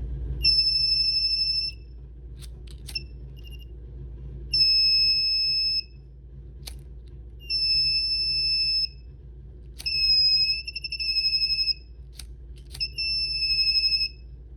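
Homemade fire alarm's buzzer, switched by a BC557 transistor from an IR receiver, sounding a steady high-pitched tone in five separate beeps of about one to two seconds each. This is the circuit going off as its sensor picks up fire. The fourth beep stutters on and off rapidly, and sharp clicks fall in a few of the gaps.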